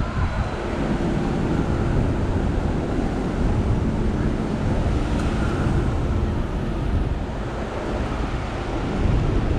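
Busy city street ambience: a steady rumble of traffic and general street noise, with wind buffeting the microphone.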